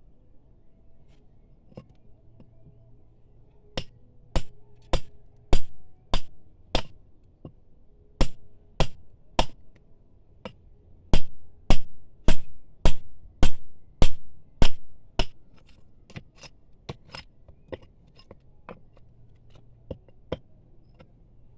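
Hammer blows on a steel chisel splitting rock, each a sharp ringing metallic strike. They start about four seconds in, come in runs of roughly two blows a second with short pauses between, and are loudest in the middle, with lighter taps near the end.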